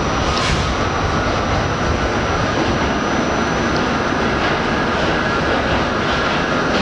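Inside an R68 subway car running between stations: steady loud running noise of wheels on rail and the car's running gear, with a thin steady whine over it and a faint click about half a second in.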